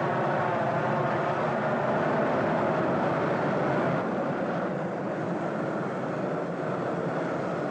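Steady rushing roar of gas torches burning on steel, a little quieter about four seconds in.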